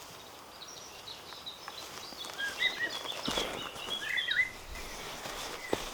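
A small bird singing a run of short chirping notes over steady outdoor hiss, with a spell of rustling from about three seconds in.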